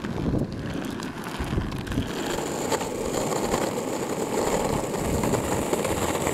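Cruiser skateboard wheels rolling over rough asphalt: a steady rumble with a few sharp clicks.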